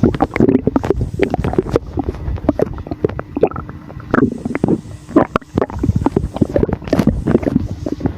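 Stomach rumbling and gurgling from air moving through the gut after drinking a sour drink: a continuous run of irregular gurgles and quick pops.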